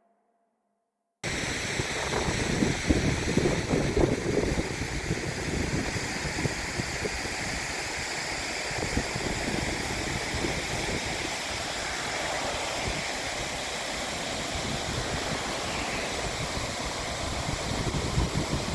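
Steady rush of falling water from a creek waterfall, cutting in abruptly about a second in, with wind buffeting the microphone now and then.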